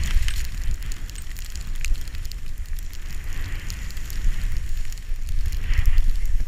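Skis turning through deep powder snow, a hiss of spraying snow swelling with each turn, about three and a half and six seconds in. Heavy wind buffeting on the camera microphone runs underneath, with small scattered clicks and crackles.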